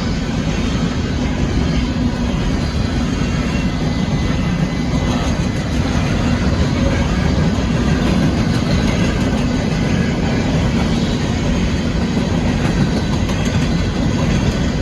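Empty coal cars of a long freight train rolling past close by, a steady loud rumble and clatter of steel wheels on the rails.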